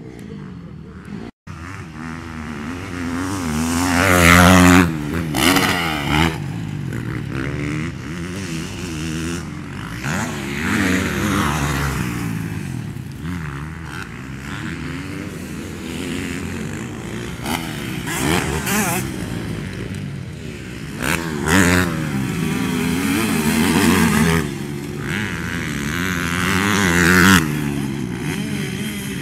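Motocross dirt bike engines revving as riders accelerate and shift around the track, the pitch repeatedly rising and falling. The loudest passes come about four seconds in and again near the end. The sound cuts out for an instant about a second in.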